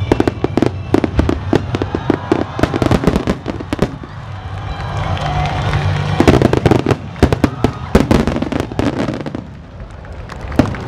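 Aerial fireworks shells bursting in quick succession with dense crackling, dozens of sharp reports, over music playing throughout.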